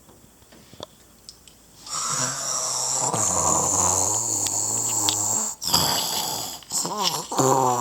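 Christmas gnome figures snoring, several snores overlapping, starting about two seconds in after a few faint clicks. Near the end one snore wavers up and down in pitch.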